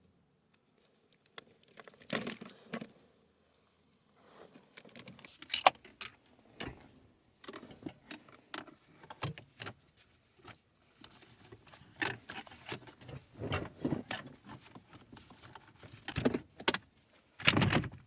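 Irregular clicks, taps and rattles of small plastic parts handled by hand: cable clips being worked off a climate-control cable and onto its replacement.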